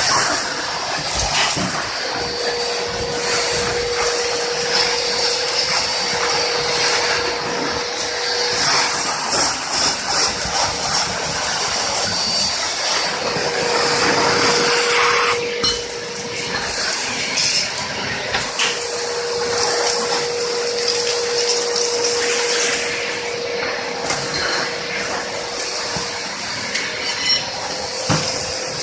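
Two-motor industrial vacuum cleaner running with a steady rushing suction noise, a faint whine coming and going through it, and now and then small ticks.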